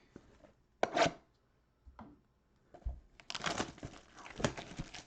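Plastic wrapping on a trading-card mega box being torn open and crinkled: one short rip about a second in, then steady crackling crinkles from about three seconds in.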